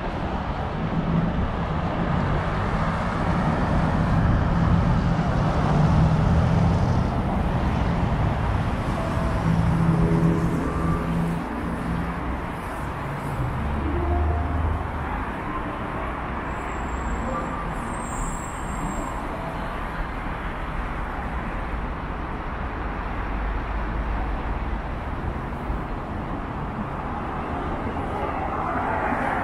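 City street traffic: motor vehicles driving past, a steady rumble of engines and tyres that is loudest in the first third and then settles.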